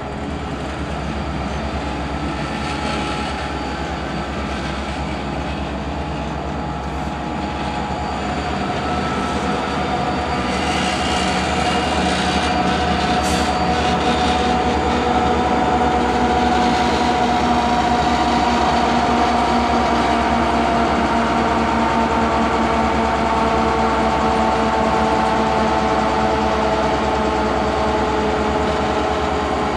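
Two EMD SD40-2 diesel locomotives running under power, their 16-cylinder two-stroke engines making a steady drone that grows louder over the first half and then holds.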